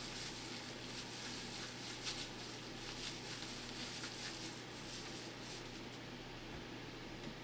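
Thin plastic grocery bag crinkling and rustling in a run of small crackles as it is pulled tight and tied around the head, dying down about six seconds in.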